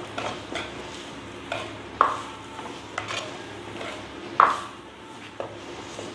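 A spoon stirring bitter gourd frying in a clay pot, knocking against the pot with several sharp clicks, the loudest about two seconds and four and a half seconds in, over a steady sizzle.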